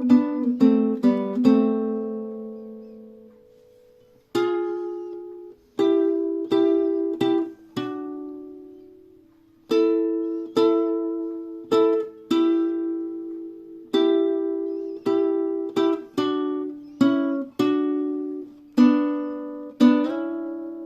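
Admira Fiesta nylon-string Spanish guitar being played: single plucked notes and short phrases, each note ringing out and fading, with brief pauses between phrases.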